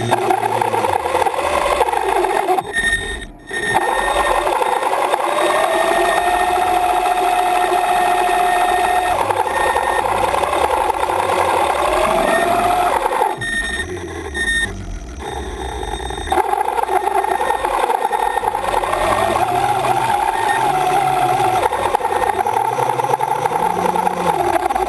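Electric thrusters of a VideoRay Pro4 ROV running with a whine whose pitch rises and falls as the thrusters speed up and slow down. The sound drops off briefly about three seconds in and again about halfway through.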